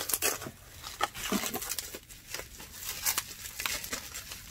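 Packaging crinkling and rustling irregularly as it is handled and unwrapped by hand.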